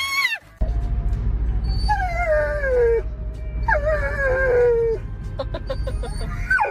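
A dog whining in two long, drawn-out howls that fall in pitch, with a shorter cry near the end, over a steady low rumble.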